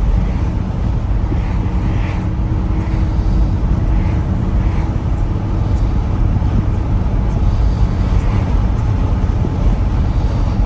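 A 1957 Ford Thunderbird's V8 engine running steadily through mellow mufflers as the car cruises along the road, with a low rumble mixed with road noise.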